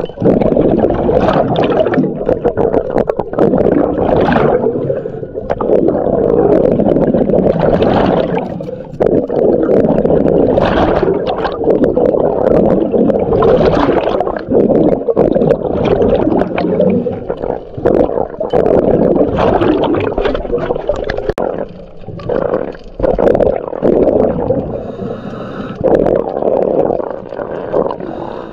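Muffled underwater rushing and gurgling of water, heard through an action camera's waterproof housing as a breath-hold diver swims, with scattered short knocks and clicks.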